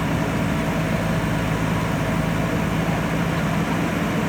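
JCB backhoe loader's diesel engine running steadily at an even pitch.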